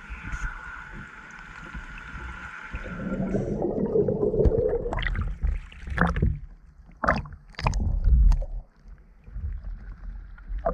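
Muffled underwater hum with a steady high tone that cuts off about three and a half seconds in as the camera rises to the surface, followed by a rush of water and then a series of sharp splashes and slaps of small waves against the camera at the sea surface.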